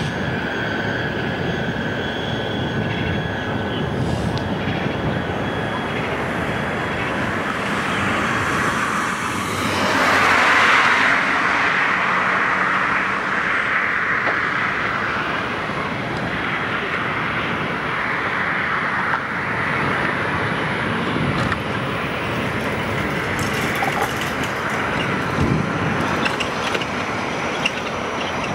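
Road noise heard from a moving vehicle: a steady rush of tyres and wind, with a louder swell about ten seconds in that eases off over the following seconds.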